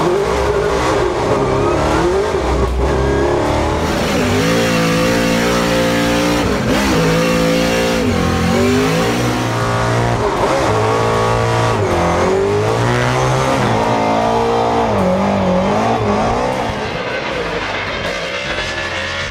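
A 1,000-horsepower Formula Drift car's engine heard from inside the car, held at high revs with repeated sharp dips and climbs as the driver works the throttle through a drift, over tyre noise and squealing as the car slides sideways. It eases off near the end.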